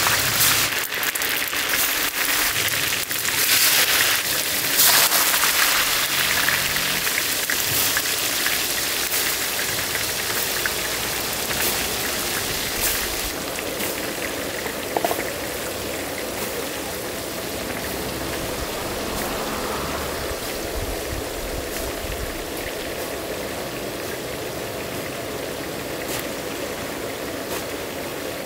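Spices sizzling and crackling in hot oil in a large wok as they are tipped in. It is loudest in the first few seconds, then settles to a steady fizz.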